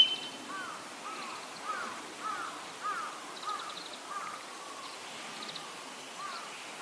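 The end of a loud, high call from a buzzard right at the start, rising and then holding steady. It is followed by a run of short, arched calls at a lower pitch from another bird in the background, about two a second for the first three seconds and once more near the end.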